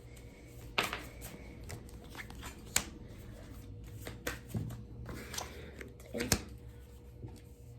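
A deck of tarot cards being shuffled and handled, with irregular rustling and sharp card snaps, several loud ones a second or two apart.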